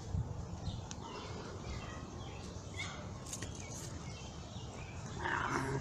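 Backyard ambience: faint, scattered bird chirps over a steady low noise, with a brief louder rustling noise about five seconds in.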